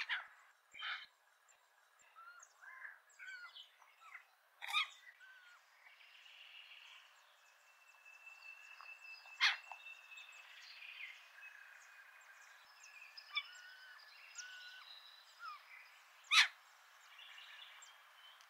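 Birds calling: short chirps and warbled notes from several birds, a held whistled note near the middle, and a few sharp, loud single notes several seconds apart.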